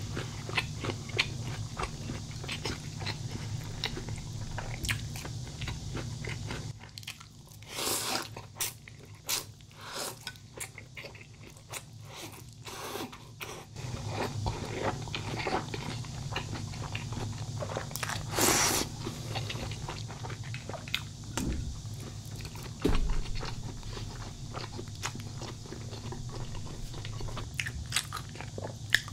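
Close-miked eating: steady chewing with crisp, crunchy bites and small mouth clicks, with a couple of louder, longer noisy bursts.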